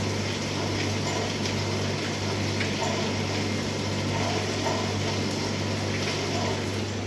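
CNC milling machine running: a steady low hum with an even hiss over it and a few faint clicks.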